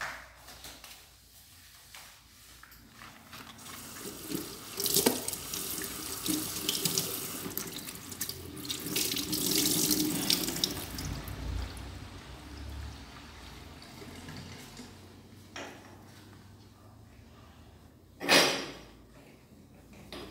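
Water running from a kitchen tap into a sink for several seconds, starting about four seconds in with a knock. Near the end, a short loud burst of noise.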